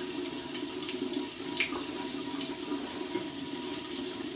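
Water tap running steadily into a sink, with a few faint ticks.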